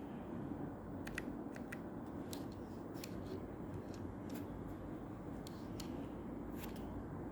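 Small sharp plastic clicks, about a dozen at uneven intervals, some in quick pairs, from keys, keycaps and low-profile Gateron red switches on a Keychron K7 keyboard being handled. A steady low hum runs underneath.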